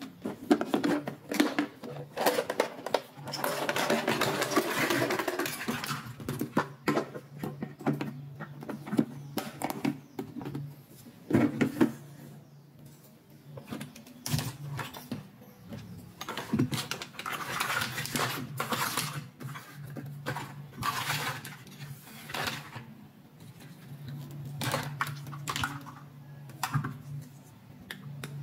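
Hard plastic toy pieces being handled: a pink plastic toy doctor-set case is opened, and its plastic instruments clatter and click against each other as they are tipped out and picked up. The sound is a busy string of small clicks and rattles, with a few louder jumbled stretches.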